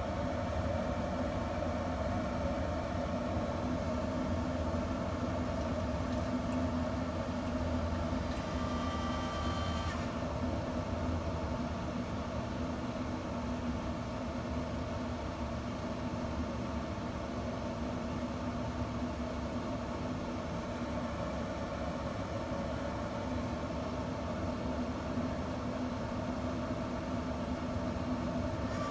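Camp Chef pellet smoker's fan running with a steady hum, a little louder for the first ten seconds or so.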